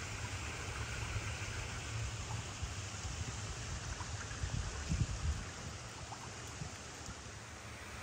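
Small stream of water running and trickling along a stony channel beside the path, a steady rushing hiss. A low rumble sits underneath, with a few faint knocks about five seconds in.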